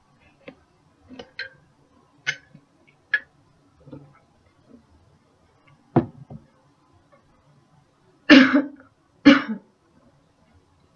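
Several small mouth and throat clicks as a woman swallows, then two loud coughs about a second apart near the end. This is the cough that finishes a supraglottic swallow, clearing anything left at the airway entrance.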